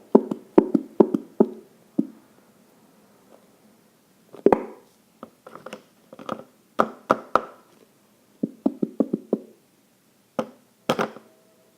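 Glue mixture sputtering out of a squeezed plastic bottle: irregular clusters of sharp wet pops and squelches as air and slime spurt from the nozzle.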